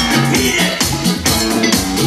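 Dance music playing for a stage routine, with a steady beat and a moving bass line.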